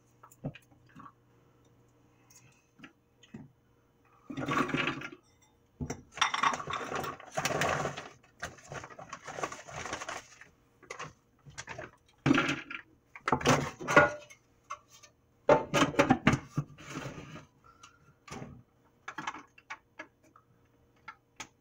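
Plastic bag of walnuts rustling and crinkling in irregular bursts as the nuts are handled and tipped into a plastic food processor bowl.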